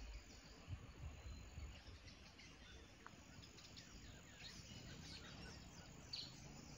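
Near silence: faint forest ambience with a few distant bird chirps, the clearest two near the end.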